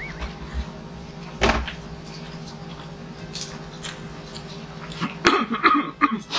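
A dull thump about a second and a half in and a sharp click about five seconds in, over a steady low hum, with a few short voice-like sounds near the end.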